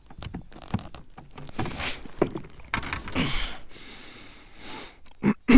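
Irregular knocks, thumps and rustles of handling fishing gear and a small caught fish in a kayak, with a louder sudden sound right at the end.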